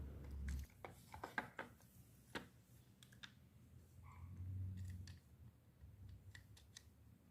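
Faint, scattered clicks and taps of hard plastic parts being handled: a car steering-wheel clock spring (spiral cable) housing with its cover snapped on. A low hum swells slightly about halfway through.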